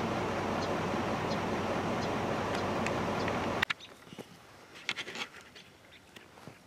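Steady rushing noise with faint, evenly spaced high chirps, cut off abruptly about three and a half seconds in. Quiet woods follow, with a few faint short high calls and clicks about a second later.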